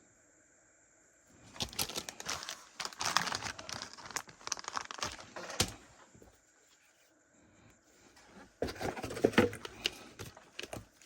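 Plastic lure packaging being handled and opened: crinkling and tearing with sharp crackles, in two spells, the first starting about a second and a half in and the second near the end.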